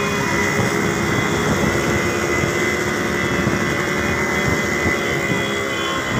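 Several motorcycle engines running steadily, mixed with wind rushing over the microphone of a camera moving along with them.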